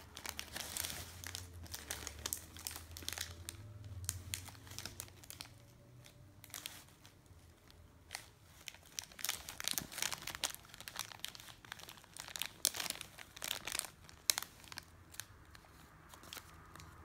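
Plastic snack pouch crinkling in irregular bursts as a child's fingers rummage inside it for fruit bites.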